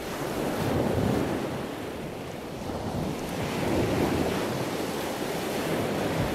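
Ocean surf washing in, swelling about a second in and again about four seconds in.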